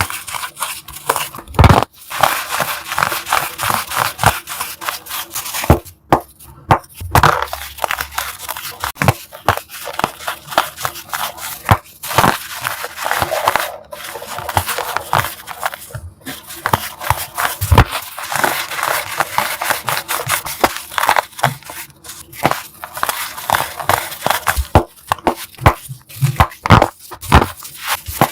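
Blocks of gym chalk being crushed: a dense, crunchy crackling with sharp snaps, broken by a few short pauses.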